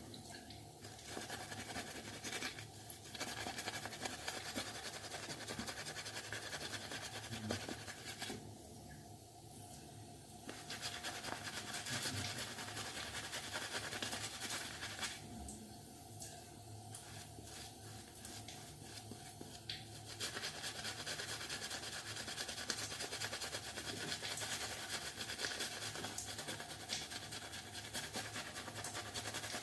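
Faint, scratchy rubbing of wet shaving at the face, going on with two short pauses.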